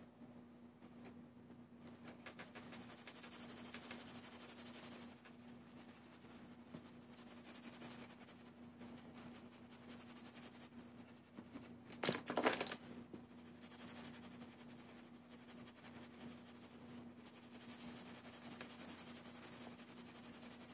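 Faint scratching of a colouring pen or pencil stroking across paper while shading a drawing, with a louder brief noise about twelve seconds in. A low steady hum runs underneath.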